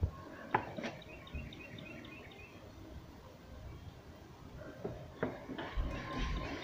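Faint bird chirps, a quick run of short high notes, among a few sharp clicks and knocks, with low thumps near the end.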